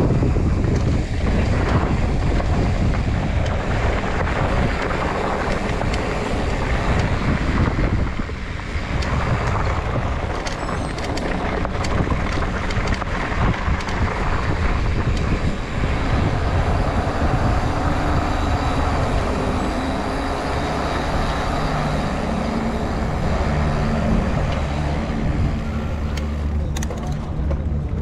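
Mountain bike riding downhill on a dirt and gravel trail: steady wind rushing over the camera microphone with tyre roar on the loose surface, and the bike rattling and clicking over bumps, more so near the end.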